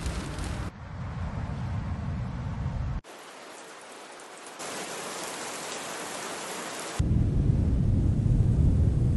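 Rushing ambient noise with no tone or voice, changing abruptly in blocks. A deep rumble with hiss opens it, drops out suddenly about three seconds in, leaving a quieter hiss that grows louder about four and a half seconds in. The rumble returns loudest about seven seconds in.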